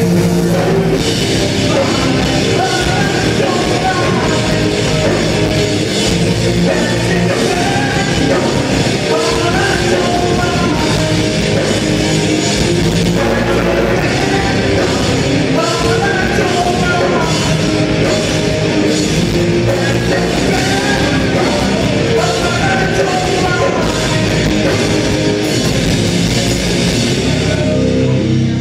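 Rock band playing loud, heavy music with a sung vocal line, the music stopping near the end.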